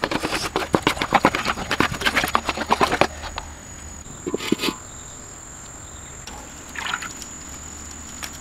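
Spatula scraping and clattering rapidly against a steel wok as egg is stir-fried, for about three seconds. Then it goes much quieter, with one brief knock about halfway through.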